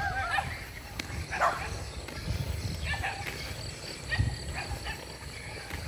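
A dog barking a few times, the clearest barks at the start and about a second and a half in. Under it runs an uneven low rumble of wind and handling on the phone's microphone.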